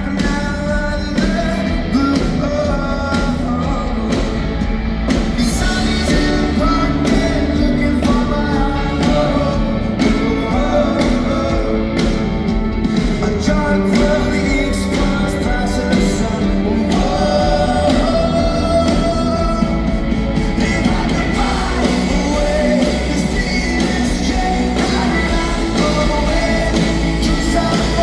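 Rock band playing live with a lead singer: drums, bass and guitars under a sung melody.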